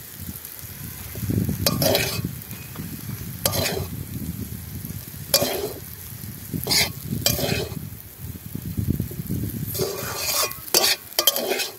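Noodles being stir-fried in a kadai (wok): a metal spatula scrapes and knocks against the pan as it lifts and turns them, every second or two, over a steady low frying sizzle.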